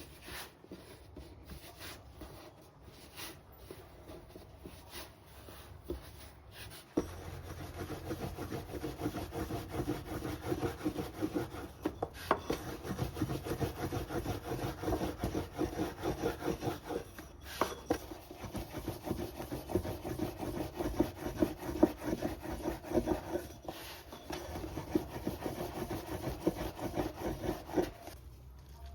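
Wooden rolling pin working dumpling dough on a wooden board: light scattered taps at first, then from about seven seconds in a long run of fast, even rubbing strokes that stops just before the end.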